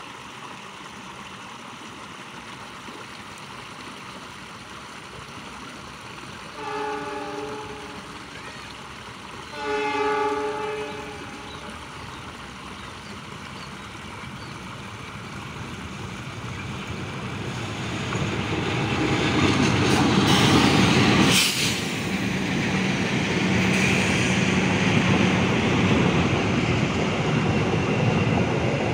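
Diesel-hauled express passenger train approaching and passing close by. The locomotive's horn sounds twice, a short blast then a longer one, and then the running noise of the engine, wheels and rails grows loud as the locomotive and coaches go by. A brief sharp burst comes about three quarters of the way through.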